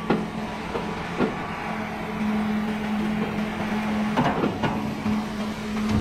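Sawmill machinery running with a steady low hum that grows stronger about two seconds in, with several sharp knocks and clanks.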